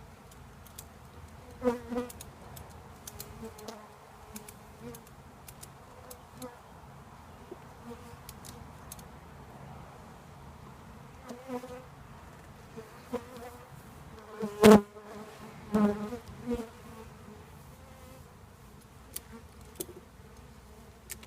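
A swarm of honeybees buzzing steadily around a freshly filled hive. Single bees buzz loudly close past the microphone several times, the loudest about two-thirds of the way through.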